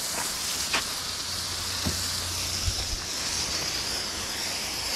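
Water hissing from a garden hose spray nozzle, with a few light knocks in the first three seconds as the hose is pulled along.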